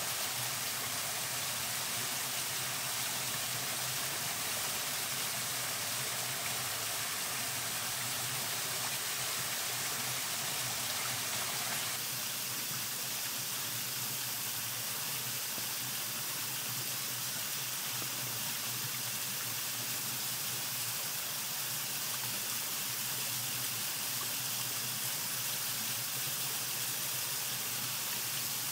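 Mountain waterfall rushing steadily, an even hiss of falling water; its tone shifts slightly about twelve seconds in.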